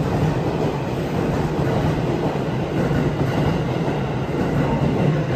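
JR Tokaido Line electric commuter train pulling out of the station, its cars rolling past with steady running noise over a low hum.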